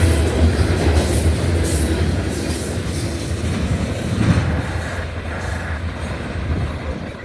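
Norfolk Southern freight train's cars rolling past on the rails: a steady low rumble with wheels clicking over the rail joints, fading gradually toward the end.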